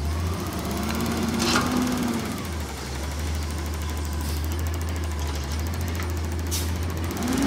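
Engine of a Peterbilt 320 front-loader garbage truck running on compressed natural gas, a steady low rumble as it pulls up to a dumpster, with its pitch rising and falling once about a second in. A couple of brief sharp sounds stand out over it.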